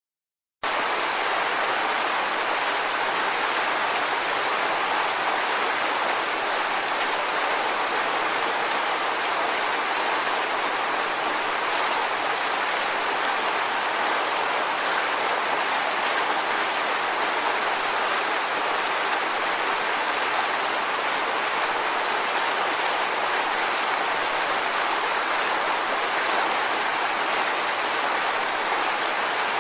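Waterfall: a steady, unvarying rush of falling water with little deep rumble, starting abruptly about half a second in.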